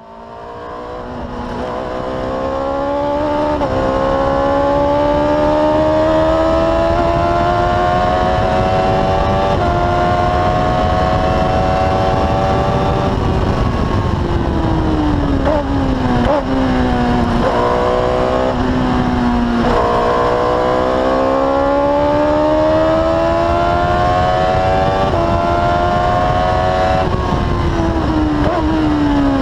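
Onboard sound of a Formula Predator's PC015 race car's engine driven hard on track. Its pitch climbs through the gears with small steps down at the changes, falls as the car slows around the middle with several short upward flicks, then climbs again and falls near the end. A steady wind rush runs underneath.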